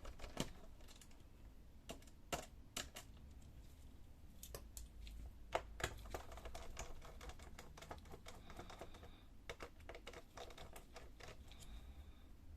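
Faint, irregular light clicks and taps of a screwdriver working the small screws out of a laptop's plastic back panel, a few of them sharper than the rest.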